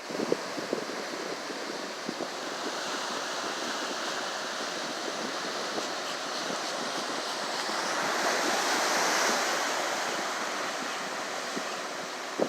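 Ocean surf breaking on the beach: a steady wash of noise that swells with one wave about three quarters of the way through and then eases off.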